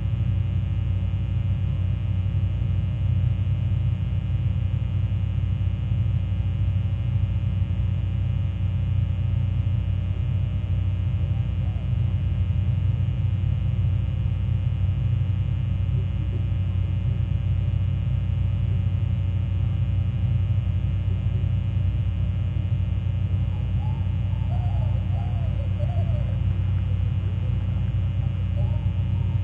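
Steady low engine drone holding one constant pitch, its hum strongest in the low range. A few faint wavering chirps come through a little before the end.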